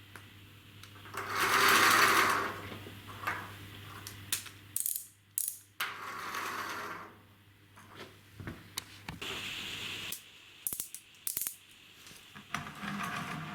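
A 3D-printed wind-up car's plastic gear train whirring in several runs of a second or two each, the first the loudest, with clicks and knocks from the car being handled and set down in between.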